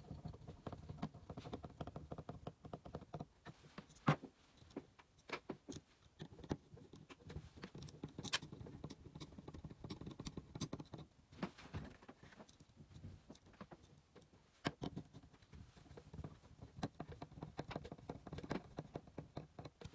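Screwdriver driving small screws by hand into a small robot chassis's motor mounts: faint, irregular clicking and scraping, with a few sharper taps.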